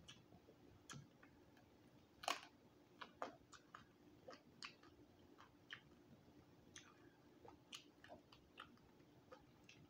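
Faint, irregular crunches and small clicks of someone chewing crispy roasted quail, with one louder crunch about two seconds in.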